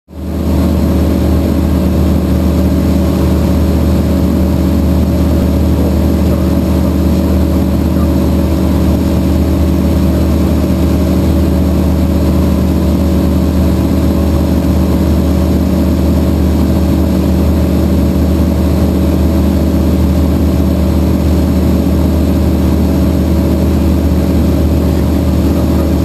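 Aquila A210 light aircraft's Rotax 912 S engine and propeller droning steadily, heard from inside the cockpit on the approach to land. The sound comes in sharply right at the start, then holds level.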